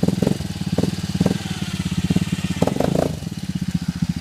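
ATV engine running with a rapid, even chugging.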